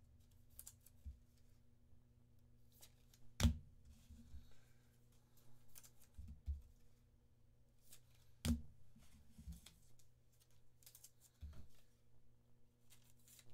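Trading cards and packs being handled on a desk: faint sliding and rustling, with two sharp knocks, one a few seconds in and one past the middle, over a low steady hum.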